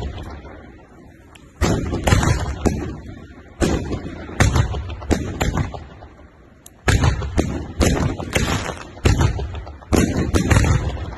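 Aerial fireworks going off in a rapid string of sharp bangs, in groups of two to four, as shells launch on sparking tails and burst overhead, each group dying away before the next.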